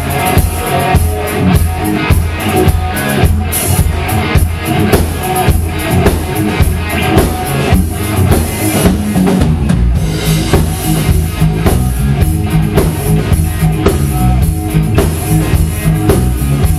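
Live rock band playing an instrumental passage on electric guitar, electric bass guitar and drum kit, with a steady beat.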